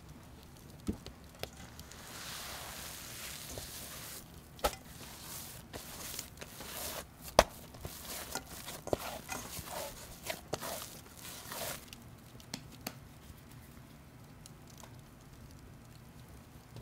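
Kitchen handling sounds during food preparation: a string of light knocks and clicks, with one sharp knock about seven seconds in, and a soft rustling hiss near the start. The sounds thin out in the last few seconds.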